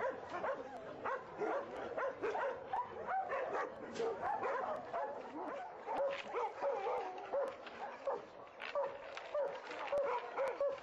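Many shelter dogs barking and yipping at once, their calls overlapping in a continuous chorus without a break.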